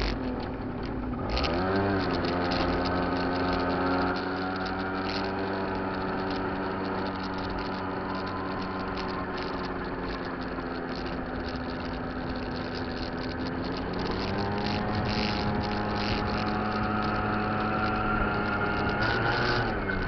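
Kymco Cobra (Top Boy) two-stroke scooter engine running while riding. Its pitch climbs as it pulls away a couple of seconds in, holds steady, climbs again about fourteen seconds in, then briefly drops near the end.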